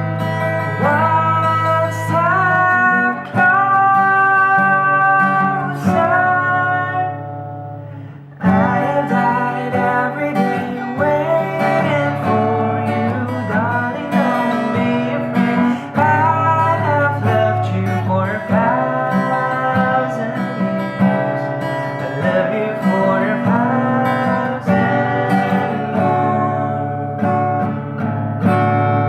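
Acoustic guitar strummed and picked under a solo singing voice, a home cover of a pop ballad. The playing eases off briefly about eight seconds in, then comes back in full.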